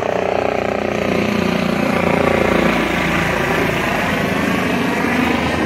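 Helicopter flying past low overhead: steady turbine whine and rapid rotor beat, a little louder a couple of seconds in.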